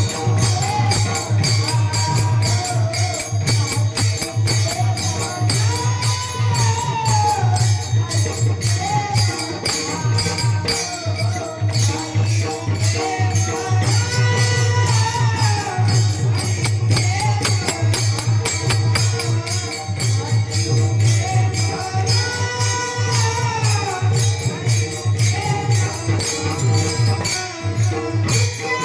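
Varkari devotional bhajan: a voice sings a gliding melody over fast, continuous strokes of small hand cymbals (taal) and a steady low drone.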